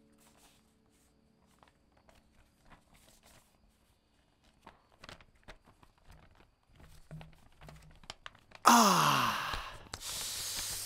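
A paper takeaway bag rustling and crinkling faintly, with small clicks, as pizza boxes are lifted out of it. Near the end a loud breathy vocal 'ooh' from a man, its pitch falling steadily, followed by a long exhale.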